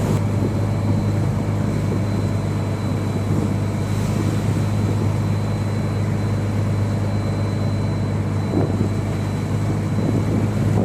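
A fishing boat's engine running steadily, a constant low drone that holds its pitch.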